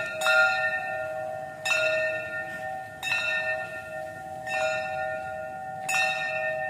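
A metal bell struck five times, about once every one and a half seconds, each stroke ringing on into the next.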